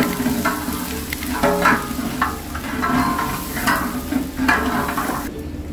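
Mutton shanks and sliced onions sizzling in hot ghee while a metal spatula stirs and scrapes around the metal pot in repeated strokes, roughly one a second: the meat being sautéed (bhuna).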